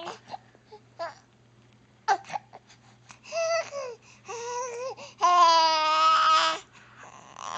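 Baby babbling and cooing in a string of short vocal sounds, then one long, loud held coo just past the middle.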